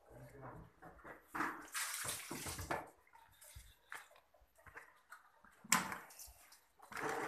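Water being poured and splashed from a plastic basin, coming and going in spells. There is a sharp knock about two-thirds of the way through.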